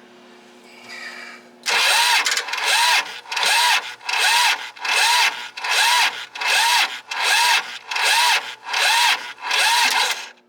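Kubota D1105 three-cylinder diesel being cranked by its starter motor, starting about two seconds in: it turns over slowly in an even pulsing beat, about three every two seconds, and never fires. It stops just before the end. The cranking is weak, and the engine will not start because its lift fuel pump is not delivering fuel, which the owner bets is a failed fuel pump.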